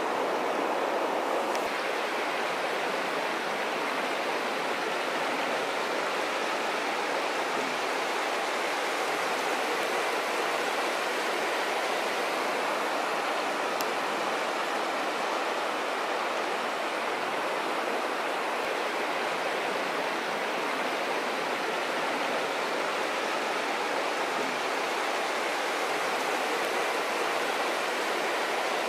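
Steady rush of flowing water, an even unbroken wash of sound.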